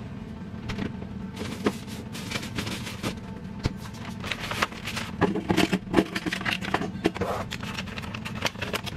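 Background music, with irregular crinkling and clicking of a plastic bag and a plastic produce box being handled, busiest through the second half.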